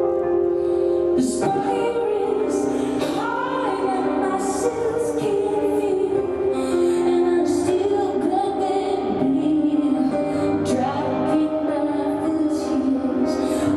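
Live music: a woman singing over instrumental accompaniment. A held chord sounds first, and the voice comes in about a second in, sliding between notes.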